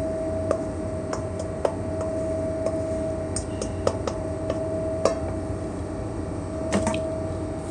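A spoon scraping and tapping against a stainless steel mixing bowl as bean mixture is scraped out into a glass baking dish, giving irregular sharp clicks. Under it runs a steady machinery hum with one held tone.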